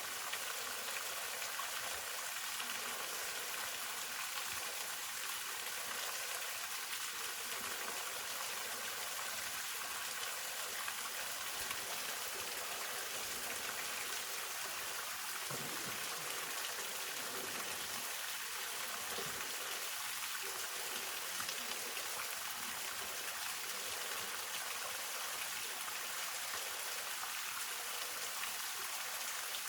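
Hongryu Falls, a mountain waterfall: water falling and splashing in a steady, even hiss, with no change in level.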